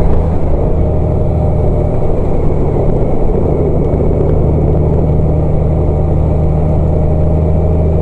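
Road vehicle driving at a steady pace: an even, unbroken engine hum and road noise.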